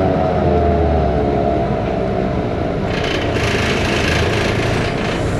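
Cummins ISBe diesel and drivetrain of a BMC Belde city bus heard from inside the bus, running with a whine that falls slightly in pitch as the bus slows. The uploader calls the engine sound faulty. A hiss comes in about three seconds in.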